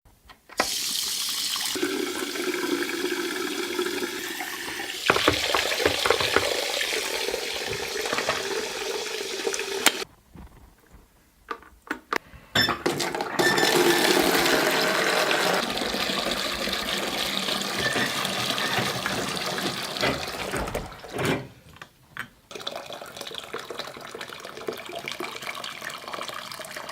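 Water running from a tap or shower, with a faint changing tone like a container filling. It stops about ten seconds in, starts again a couple of seconds later, and runs more quietly in the last few seconds.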